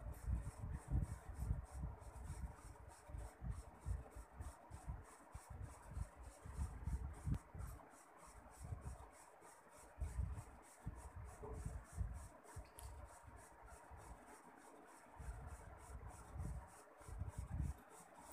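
Hands patting and pressing soft dough flat on an oiled plastic sheet: irregular rubbing and dull pats, with a couple of short pauses.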